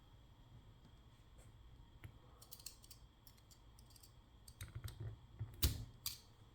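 Small sharp metal clicks and taps of a Paclock 100A padlock's parts being worked loose as a piece is taken off the lock during disassembly. The clicks are sparse at first and come thicker in the second half, with the loudest near the end.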